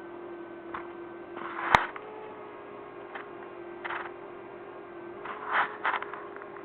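A steady hum with a handful of short noisy sounds and one sharp knock about two seconds in.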